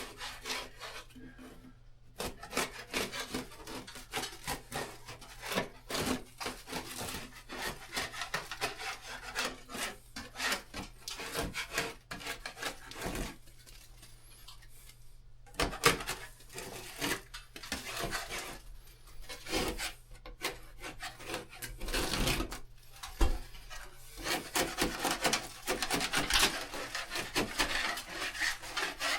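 Hand tool scraping over a painted wall surface in quick, irregular back-and-forth strokes, with a short pause about halfway through. The work is typical of taking back loose, peeling paint.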